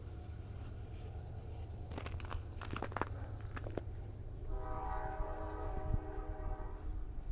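A train horn sounds a steady chord of several notes for about two and a half seconds, starting a little past halfway, over a low rumble of wind on the microphone. A few sharp clicks come about two to three seconds in.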